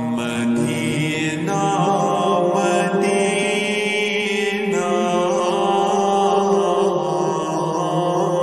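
A naat, an Islamic devotional song, sung as a chant in long held notes that change pitch a few times.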